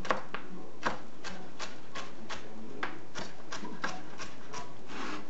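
Chef's knife chopping celery stalks on a plastic cutting board: a quick run of crisp cuts ending in taps on the board, about three strokes a second, slightly uneven.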